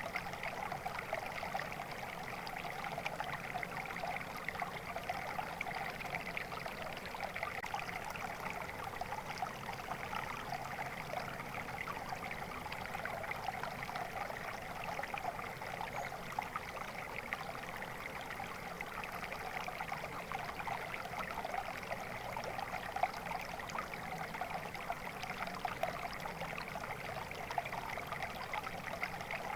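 Water flowing steadily in a stream, a continuous babbling trickle.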